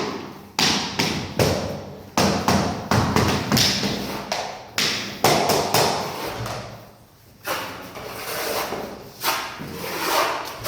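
Repeated knocking thuds of blows on flooring, irregularly spaced, about a dozen in quick succession, then a short lull and a few more.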